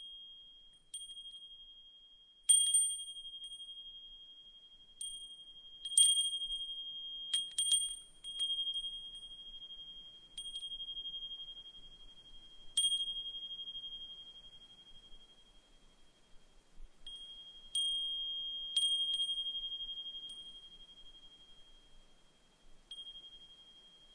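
Brass suzumushi furin (Japanese wind chime) ringing as the wind moves it: irregular, clear, high single-pitched strikes, each ringing on and fading slowly, with several strikes bunched close together around the middle.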